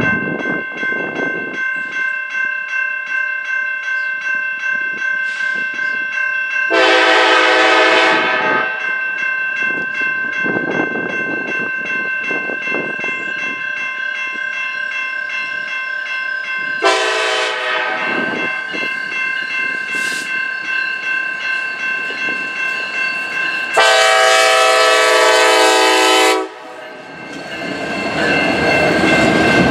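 Norfolk Southern SD70ACe diesel locomotive approaching and sounding its air horn in three long blasts, with a bell ringing steadily underneath. Near the end the locomotive goes by and the coal hoppers behind it roll past with wheel clatter.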